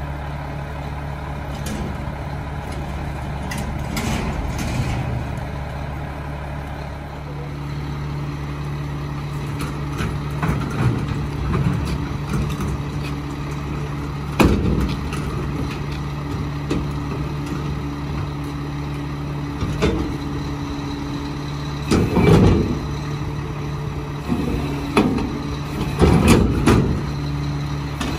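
Mack LR rear-loader garbage truck running steadily, with a steady higher hum joining about seven seconds in. Several loud bangs and clanks in the second half, the loudest near the end.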